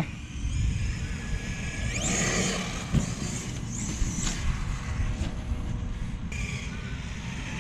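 Large radio-controlled truck driving over grass, its motor and gears whining up in pitch as it speeds up, about two seconds in and again near four seconds.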